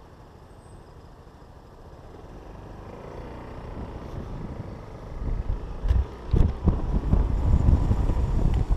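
SYM Citycom scooter engine idling at a stop, then pulling away and speeding up. From about five seconds in, wind buffets the chest-mounted camera's microphone in loud, irregular gusts.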